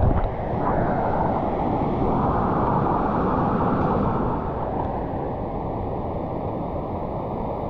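Steady, muffled rushing of water from a fast jungle river at a waterfall, with no distinct splashes or strokes.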